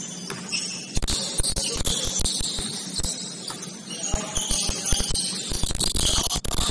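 Basketball game sounds: sneakers squeaking on the court floor and a ball bouncing, with irregular knocks and thuds from about a second in, over a steady low hum.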